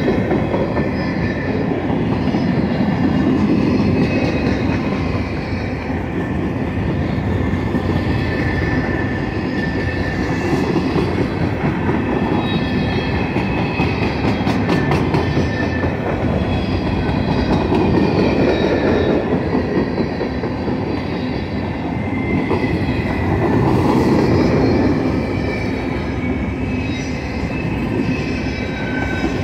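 Covered hopper freight cars rolling past on the rails: a steady rumble of wheels on track that swells and eases, with thin, high metallic squeals from the wheels running through it.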